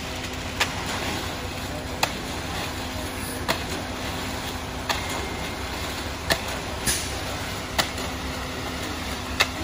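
Concrete mixer truck running steadily with a low hum while shovels and a concrete rake scrape and clink through the wet concrete, a sharp metallic strike about once a second, eight in all.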